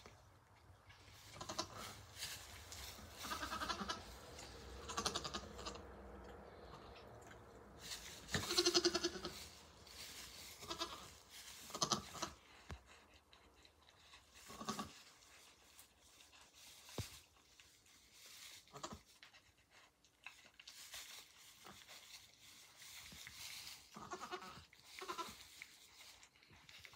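Newborn goat kids bleating: about a dozen short calls scattered every second or few seconds, the loudest about a third of the way in.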